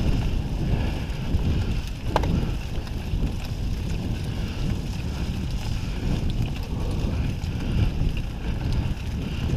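Wind buffeting the microphone of a camera on a moving mountain bike, over the steady rumble of the bike rolling along a dirt forest trail, with one sharp knock about two seconds in.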